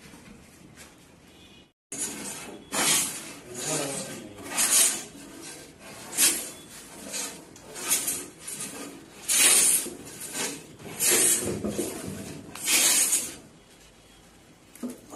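Irregular rasping strokes of a hand tool worked against wood, roughly one or two a second, stopping shortly before the end.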